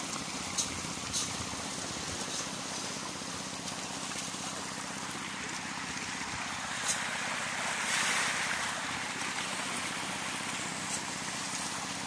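Many pond fish splashing and churning at the water surface in a feeding frenzy, a steady watery rushing with a few short sharp clicks, swelling briefly about eight seconds in. A faint steady hum runs underneath.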